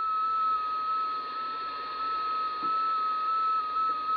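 A digital data-mode transmission on the 11-metre band, coming through the Superstar 360FM CB radio's speaker. It is a steady whistling tone that steps slightly up and down in pitch, over a background of receiver hiss.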